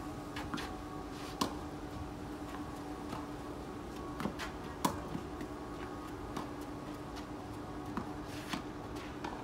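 Tennis balls being struck by rackets and bouncing on a clay court during a rally: a handful of sharp pops a second or more apart. A steady hum runs underneath.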